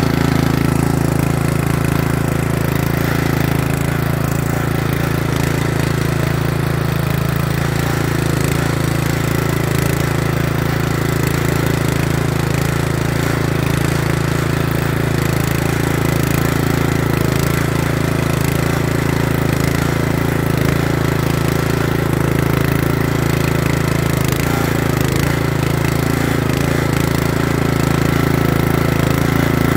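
Loncin 196 cc single-cylinder four-stroke engine on a motor tiller, running steadily at one even pitch while its rotary tines dig through soil.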